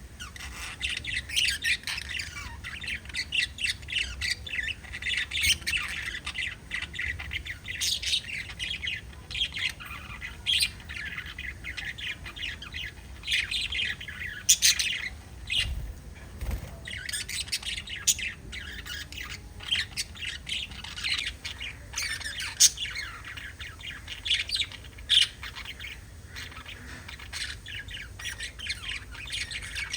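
Several pet budgerigars chattering together, with a dense run of quick chirps and frequent louder, sharp squawks standing out throughout.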